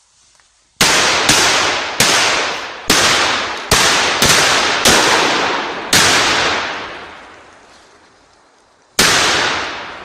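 Firecrackers (petard bangers) going off: a quick string of about eight sharp bangs over five seconds, each trailing off in a long echo, then a pause and one more bang near the end.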